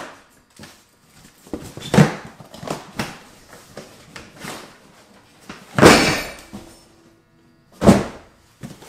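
Cardboard shipping carton being opened and unpacked: rustling and scraping of cardboard flaps, with loud thuds as boxes are handled and set down about two seconds in, around six seconds in and near the end.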